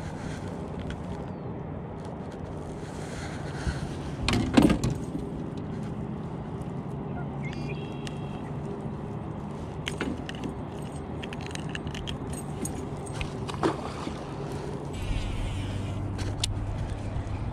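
A steady low motor hum that drops in pitch about fifteen seconds in. A loud clatter of handled gear comes about four and a half seconds in, and a few sharp clicks follow later.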